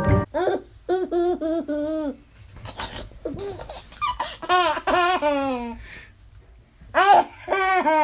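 A young child laughing in three bursts of quick, high-pitched 'ha-ha' pulses, the last burst the loudest.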